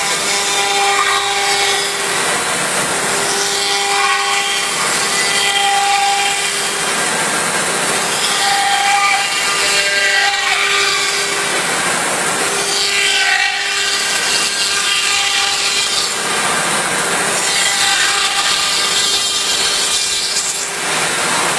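M1325 CNC wood router's spindle cutting wood: a loud, steady whine over cutting noise, breaking off briefly every few seconds as the cutter moves through the work.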